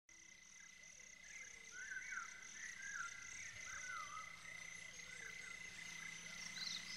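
Faint outdoor nature ambience at the start of the recording: a high, evenly pulsed chirping at about three chirps a second, stopping about four seconds in, over a steady high tone, with warbling, wavering animal calls around it.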